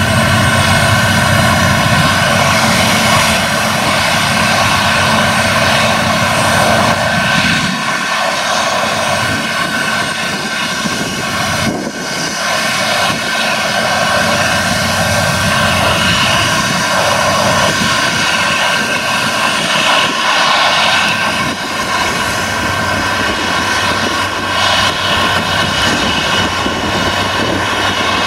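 Claas Lexion combine harvesters running at work threshing rapeseed: a steady engine and threshing drone with a high whine over it. The deep rumble thins out about eight seconds in.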